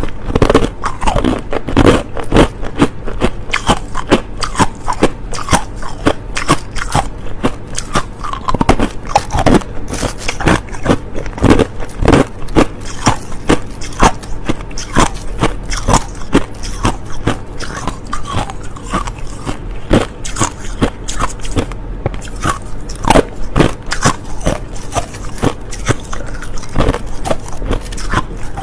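Close-up crunching of clear, hard crushed ice being bitten and chewed, a quick, steady run of sharp cracks and crunches.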